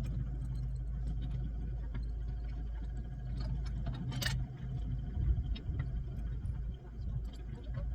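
A steady low engine hum, with scattered light clicks and a short rustling noise about four seconds in.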